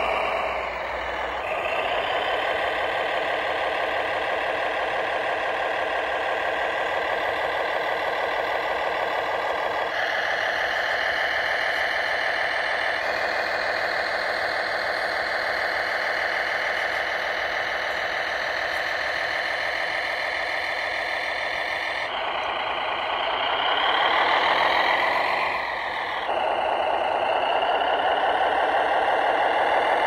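Remote-controlled Steyr model tractor running while it drags a metal roller over sand, a steady whining engine-like drive sound. Near the end it swells and rises in pitch, then drops back.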